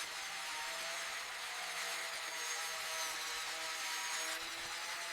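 Steady mechanical hum with an even hiss and a few faint held tones.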